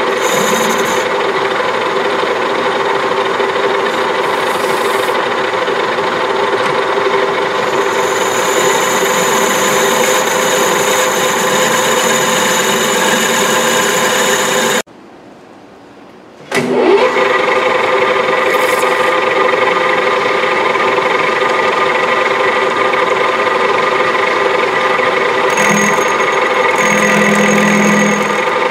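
Metal lathe running steadily, its motor and gear train giving a constant hum with several whining tones, while turning a cast aluminium blank. The sound cuts out for about a second and a half midway, then comes back.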